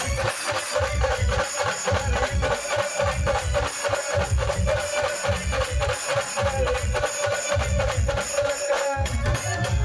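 Band music playing a pawri tune: a steady melody line held near one pitch over a pulsing bass drum beat and quick, even strokes of jingling percussion.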